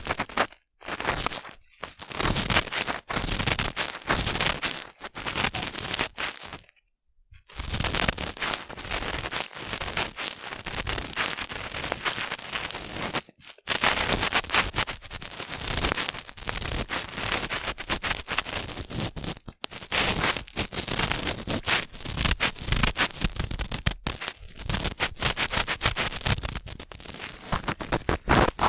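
Cotton swabs rubbing and scraping in the ear of a binaural microphone, a dense close-up scratchy rustling with short pauses about 7 and 13 seconds in.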